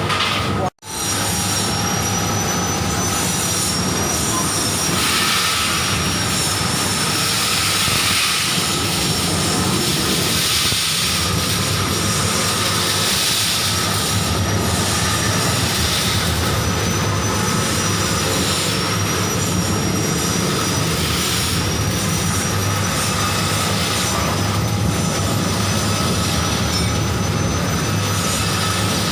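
Rotary grain dryer with automatic stirrer running: a steady loud mechanical noise with a thin, slightly wavering high whine over it. The sound drops out briefly under a second in, then carries on unchanged.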